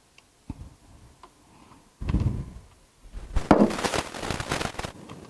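Handling noise from Ethernet cables and a small plastic router: a few light clicks, a rustle about two seconds in, then a louder stretch of crackling rustle from about three and a half seconds as a cable is plugged into the router.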